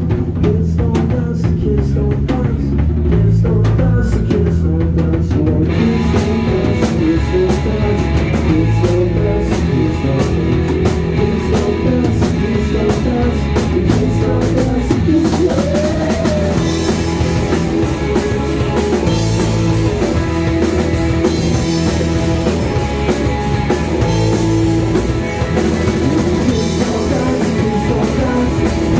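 Live rock band playing: a steady drum-kit beat over bass notes, with the sound filling out about six seconds in as guitars and the rest of the band come in.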